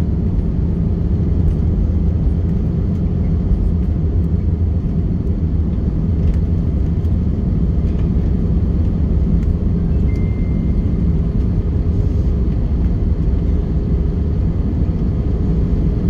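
Steady low rumble in the cabin of an Airbus A321 rolling along the runway after landing: engine noise at low power mixed with the rumble of the wheels on the pavement.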